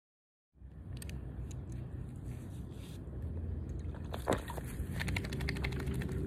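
Wind rumbling on a phone microphone outdoors, starting after half a second of silence, with scattered clicks of handling. One sharp click comes past the middle, followed by a quick run of rattling taps as the puppy's leash and clasp are handled.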